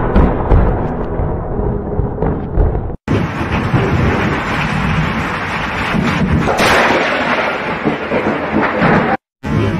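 Thunder from a close lightning strike rumbling and fading. After a cut, a thunderstorm's steady noise of rain and wind follows, with a louder burst of thunder about six and a half seconds in.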